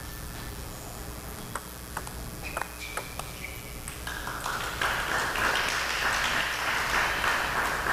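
Table tennis ball clicking off paddles and the table in a short rally of a few hits, then spectators applauding from about four seconds in, louder than the rally, as the point is won.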